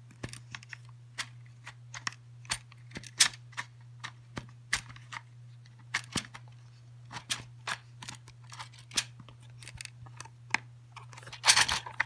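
Paintballs being pushed one by one into a clear plastic Helix paintball magazine, with sharp, irregular plastic clicks about every second and a louder flurry of clicking near the end.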